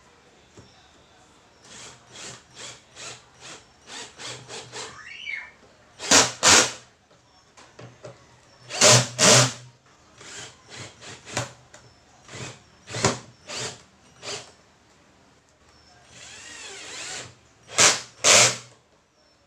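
A 12-volt cordless drill/driver in short trigger bursts, turning the mounting screws around a woofer in a speaker cabinet. The loudest bursts come about six, nine and eighteen seconds in, and there is one longer run a little before the end.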